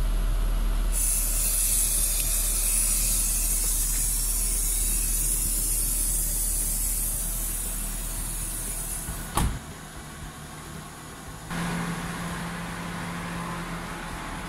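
Car air-conditioning sanitizer aerosol can, its valve locked open, hissing steadily as it releases its fog. The hiss starts about a second in, over the low steady sound of the running engine and AC blower. A single sharp knock comes about nine seconds in, after which the hiss is much fainter, and a low hum comes in near the end.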